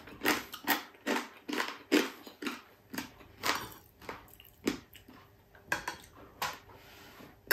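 A mouth chewing crispy boneless chicken-feet chicharon: a run of crunches coming irregularly, about two or three a second.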